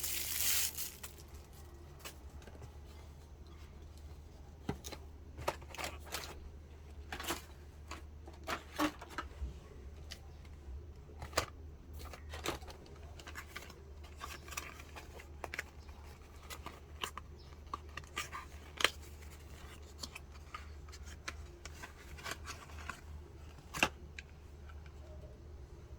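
Irregular small sharp clicks and snips of handling, with two louder clicks in the second half, over a steady low hum.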